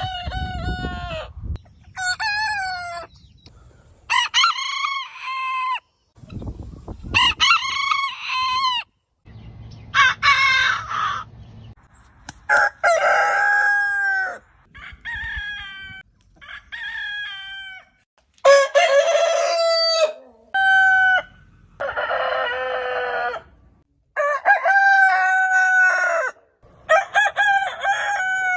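Roosters crowing, about a dozen crows one after another, each a drawn-out call that rises and then falls in pitch. They are spliced together with sudden cuts to silence between several of them.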